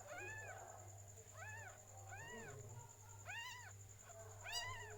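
Cat mewing five times, about once a second: short, high calls, each rising and falling in pitch.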